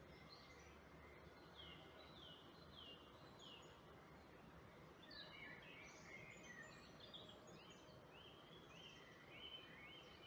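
Faint birdsong over a low steady hiss: a run of four falling whistled notes, then a jumble of quick chirps, then a series of short notes that rise and level off.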